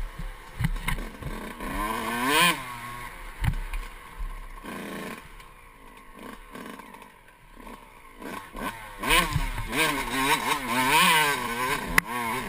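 Enduro dirt bike engine revving, its pitch rising and falling again and again as the throttle is worked, with a few knocks and rattles. The engine eases off to a quieter run about halfway through, then revs hard again for the last few seconds.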